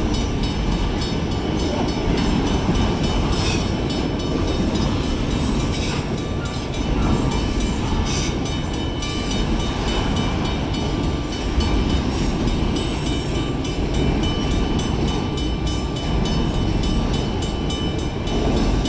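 Freight train of auto rack cars rolling steadily through a grade crossing, a continuous rumble of steel wheels on the rails. The crossing bell keeps ringing through the passage.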